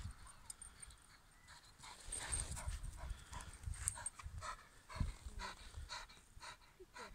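A whippet panting hard after a sprint: quick, rhythmic breaths about twice a second from about halfway in, after some low rumbling.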